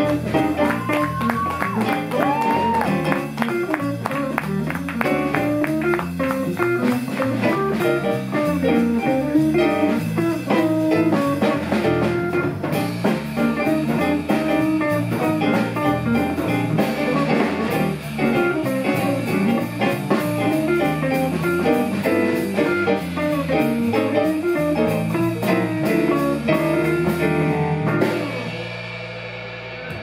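Small jazz band playing a bebop blues live: Gibson ES-350 hollow-body electric guitar, electric bass, keyboard and drum kit. About two seconds before the end the band stops on a held final chord that fades away.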